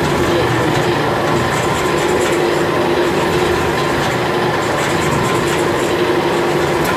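Wanlong LXM-20 automatic stone line polisher running, its row of polishing heads spinning against a stone slab: a loud, steady machine noise with a constant hum.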